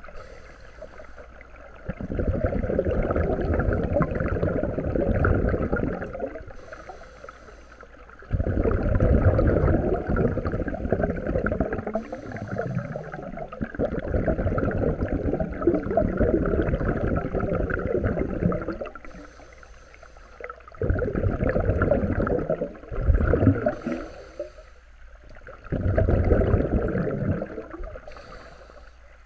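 Scuba breathing heard underwater: long bubbling exhalations through a regulator, each lasting a few seconds, alternate with short hissing inhalations. There are about five breaths in all, the longest running for roughly ten seconds in the middle.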